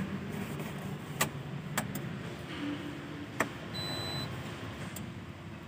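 Attempt to start a Tata Ace Gold BS6 with the ignition key: a few sharp clicks, a short hum and a brief high beep from the dashboard, with no engine catching. The battery appears too weak to turn the engine over.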